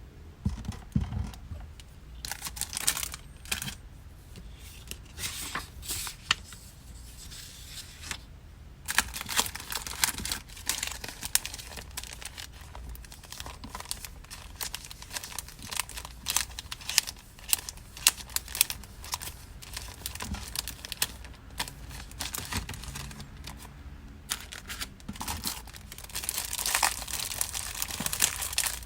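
Packing materials being handled by hand while an order is packed: irregular crinkling, rustling and tearing, growing busier near the end.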